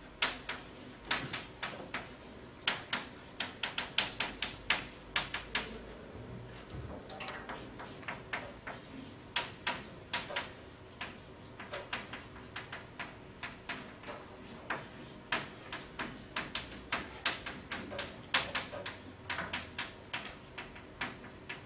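Chalk writing on a chalkboard: sharp irregular taps and short scratches as strokes are made, coming in runs of several a second with brief pauses between words.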